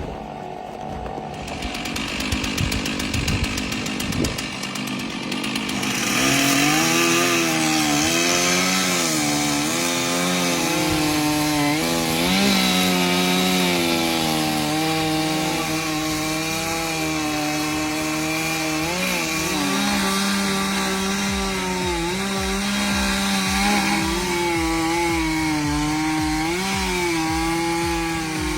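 Two-stroke chainsaw cutting wood. It is quieter for the first few seconds, then runs louder from about six seconds in, its engine pitch dipping and recovering again and again as the chain bites under load.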